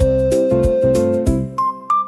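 Background music: a keyboard melody over a steady beat. Near the end the bass and beat drop out, leaving a few single high notes stepping upward.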